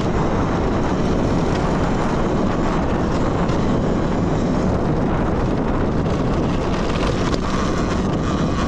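Steady rush of wind over the microphone while riding a Talaria Sting electric dirt bike at speed, with the ride's rumble underneath.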